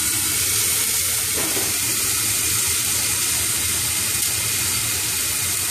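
Curry spice paste frying in hot oil inside a covered stainless-steel pot, sizzling steadily.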